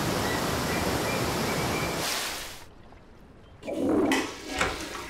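Rushing roar of a large waterfall, a steady heavy wash of falling water that fades out after about two and a half seconds. Two short, duller sounds follow near the end.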